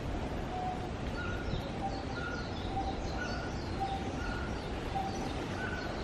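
Birds calling: short whistled notes alternating high and low, about two a second, with quick high chirps, over a steady outdoor background hiss.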